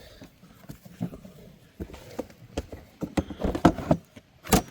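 A series of irregular knocks and clicks, with the loudest knock near the end.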